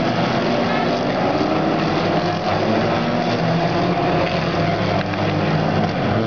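Engines of a pack of Volkswagen Golf race cars running at speed. Several engine notes overlap, some rising slowly as cars accelerate.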